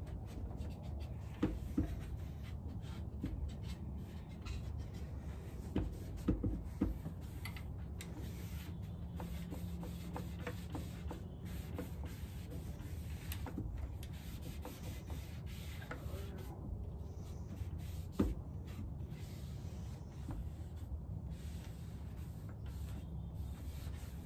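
Cloth rubbing and wiping along a painted wooden chair's arms and frame, with a few light knocks of hand or cloth against the wood, over a steady low background rumble.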